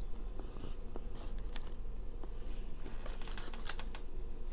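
Close-miked chewing of a crumbly chocolate brownie: soft, scattered clicks and mouth sounds, in small clusters, over a steady low hum.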